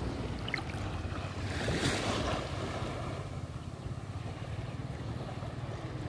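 Small waves washing over shallow sand at the water's edge, with wind rumbling on the microphone; the wash swells about two seconds in.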